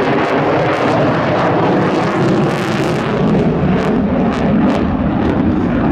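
F-35A Lightning II's afterburning turbofan jet engine running at high power with the afterburner lit, a loud steady noise, with several sharp cracks through the middle.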